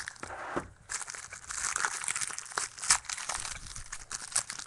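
A trading-card pack's wrapper being torn open and crinkled by hand: a dense run of crackling and tearing with a brief pause a little under a second in.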